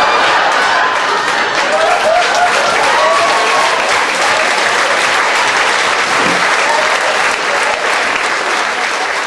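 Live audience applauding steadily, with a few voices calling out over the clapping in the first few seconds.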